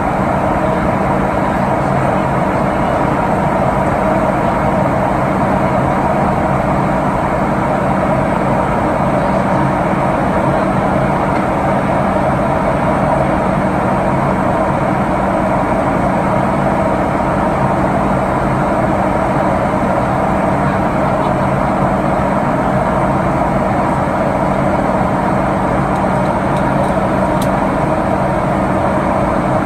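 Cabin noise of a Boeing 737-800 in flight, heard from a seat by the wing: the CFM56-7B turbofans' steady drone mixed with the rush of air past the fuselage, with a few held hums under it.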